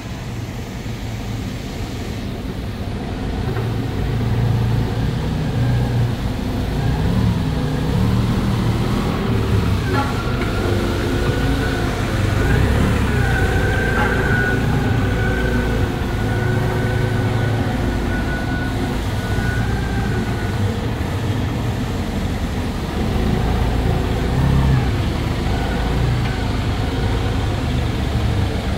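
Toyota 8FG50U forklift's propane engine idling steadily, with a thin high whine for several seconds around the middle.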